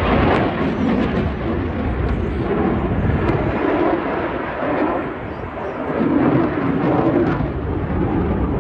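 Loud jet noise from a Eurofighter Typhoon's twin Eurojet EJ200 engines during a flying display. It eases off a little about halfway through, then swells again.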